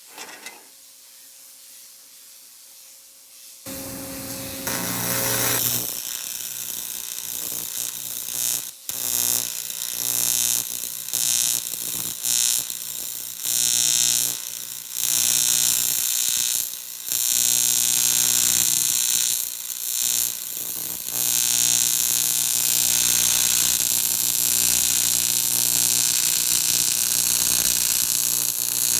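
TIG welding arc buzzing on an aluminium intake manifold, run at about 175–180 amps with a 3/32 tungsten. The arc strikes about four seconds in, breaks off and restarts several times, then burns steadily through the last several seconds.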